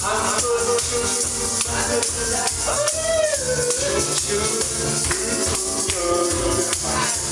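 Loud party music with a steady beat, with a melody sung into a microphone over it.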